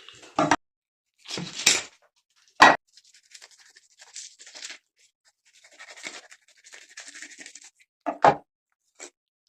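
Knife and fish being handled on a cutting board during fish butchering: a few sharp knocks, one about two and a half seconds in the loudest, with softer scraping and rustling between them.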